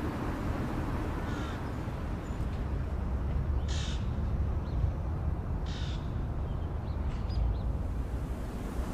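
Two bird calls about two seconds apart, each about half a second long, with a fainter call before them and a few small chirps after, over a steady low rumble.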